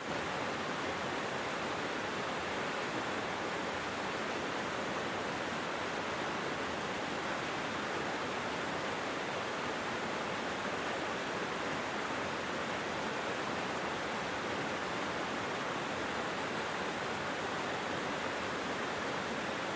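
Small mountain stream flowing over rocks: a steady, even rush of water.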